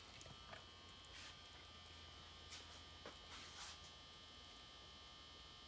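Near silence: the faint steady buzz and mains hum of fluorescent shop lights, with a few faint ticks.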